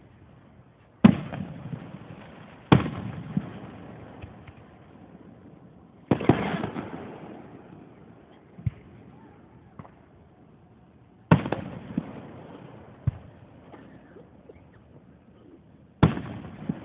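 Aerial firework shells bursting: five loud booms a few seconds apart, each trailing off in a long rolling echo, with a few smaller pops in between.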